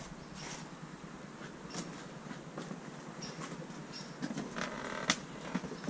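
Footsteps and creaks across a debris-strewn floor inside a wrecked railcar, with scattered light clicks and knocks and one sharper knock about five seconds in.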